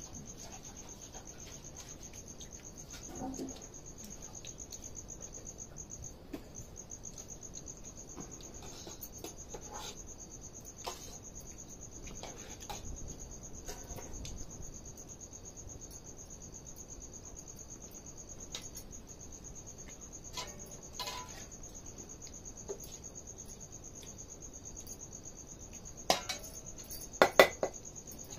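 A cricket trilling steadily in a single high pitch. Near the end, a few sharp clinks of steel dishes and utensils.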